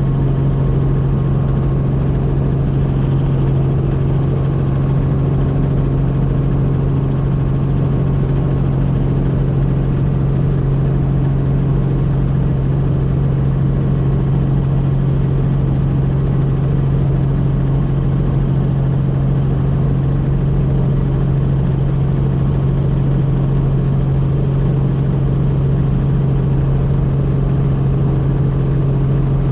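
Helicopter in flight: a loud, steady drone of engine and rotor with a strong low hum, unchanging throughout.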